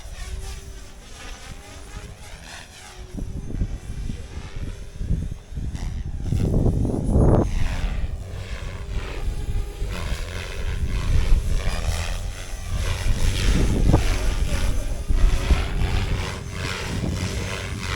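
Radio-controlled helicopter's rotors running in flight, their sound sweeping up and down in pitch as it moves about. Strong wind buffets the microphone throughout, with heavy low rumbling gusts about six to seven seconds in and again around thirteen to fourteen seconds.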